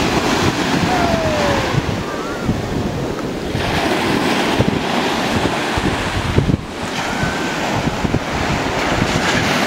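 Ocean surf breaking and washing through the shallows in a steady rush, with wind buffeting the microphone.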